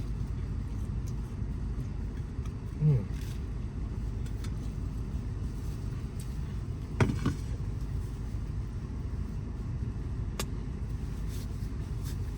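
Steady low rumble of a vehicle running, heard from inside the cab, with a brief knock about seven seconds in and a sharp click around ten seconds.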